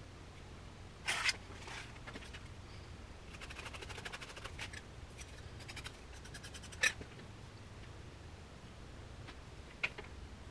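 A hand tool scratching and scraping on clay in short bursts, some as fast runs of ticks, with a sharp click about seven seconds in and another near the end.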